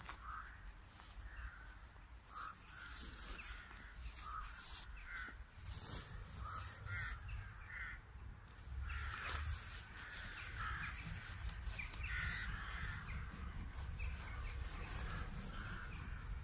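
Crows cawing over and over in short calls, one every second or so, with a low rumble underneath.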